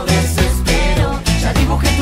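Spanish-language pop song: a sung melody over a steady beat.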